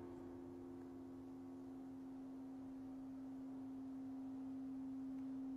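A faint, steady pure tone held at one pitch, with a second, slightly higher tone beside it that fades out about halfway through.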